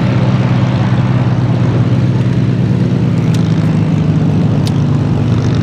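Rolls-Royce Merlin piston engines of Spitfire and Hurricane fighters running on the ground with propellers turning: a loud, steady low drone whose pitch shifts slightly about halfway through.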